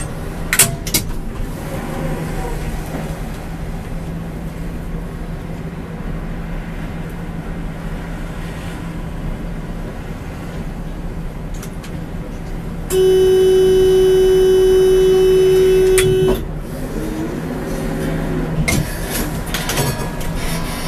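Prague tram running along its track, heard from the driver's cab, with a steady low hum and a few clicks from the wheels and rails. About two-thirds of the way through, a loud single-pitch warning horn sounds for about three and a half seconds and cuts off sharply.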